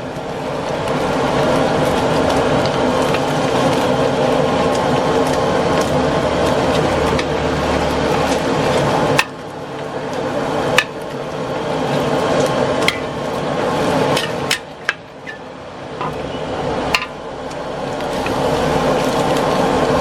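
Wok cooking at a street-food stall: a steady burner-and-frying noise, then from about halfway sharp clanks of a metal spatula striking the wok.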